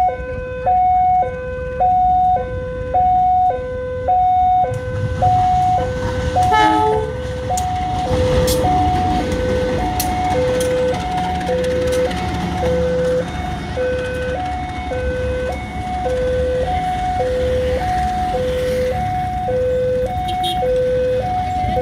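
Indonesian railway level-crossing warning siren: an electronic two-tone alarm alternating a higher and a lower note, about one high-low cycle a second. From about five seconds in, a diesel-hauled train passes under it with a low steady rumble and a few sharp clicks of wheels on the rails.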